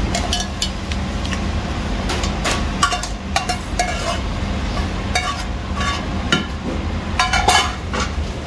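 Dishes, glasses and cutlery clinking, a dozen or so sharp clinks with short ringing scattered irregularly over a steady low hum.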